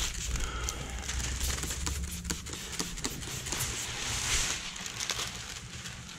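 Thin plastic window tint film crinkling and crackling as it is handled and smoothed against the glass, with a brief louder rustle about four seconds in.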